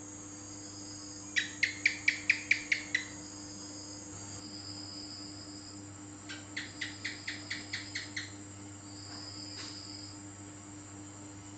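House gecko (cicak) calling: a fast run of about nine sharp chirps, then a second, quieter run of about ten chirps a few seconds later, over a steady high-pitched background hiss.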